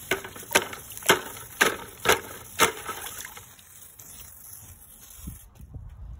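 Hammer blows on a low-pressure sodium lamp submerged in a bucket of water: six sharp strikes about two a second, each with a splash, then the water sloshing as the striking stops.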